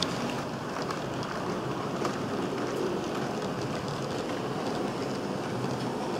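Roco class 50 model steam locomotive running along sectional track: a steady rolling rumble of its motor and wheels, with a few faint rail clicks in the first two seconds.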